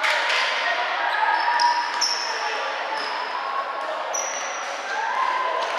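Basketball game play: a ball bouncing on the court and sneakers squeaking in short high-pitched chirps, over background voices of players and onlookers.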